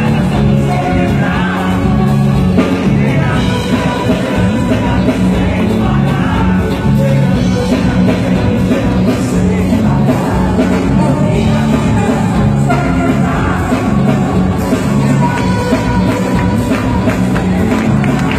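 Live band playing an upbeat pop song with a woman singing over a steady repeating bass line, loud and continuous as heard from within a concert audience.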